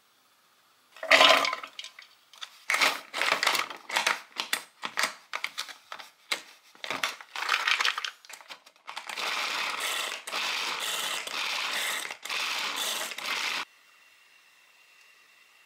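Hand-operated mini food chopper mincing diced carrots: a clatter about a second in, then a run of short whirring, rattling strokes about two a second, turning into longer continuous spells of whirring that stop suddenly near the end.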